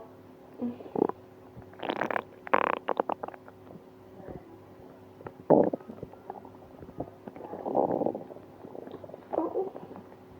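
Human stomach gurgling in irregular bouts, with a quick run of squelching pops about two and a half seconds in. The stomach is upset and painful after eating ice cream.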